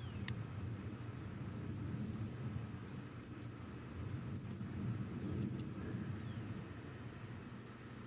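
Nestling songbirds begging in the nest: very high, thin squeaks, mostly in quick pairs or threes about once a second, over a low steady rumble.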